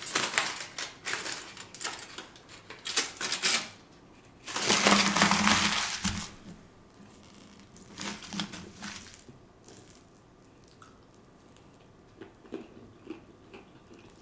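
Aluminium foil crinkling and crackling as it is unwrapped from a piece of cornbread: short bursts at first, then a longer, louder stretch about five seconds in. It fades to a few faint small clicks near the end.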